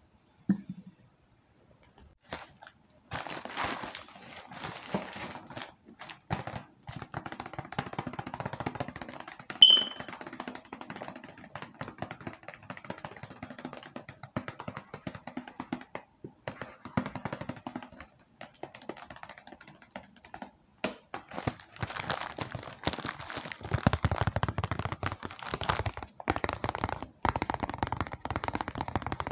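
Rapid tapping on objects: many quick taps close together, starting about three seconds in, with one sharp, loud click about ten seconds in.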